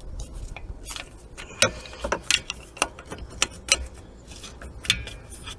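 Ratchet spanner clicking in irregular runs of sharp metallic clicks as the rusted 16 mm rear hub bolts are cracked loose.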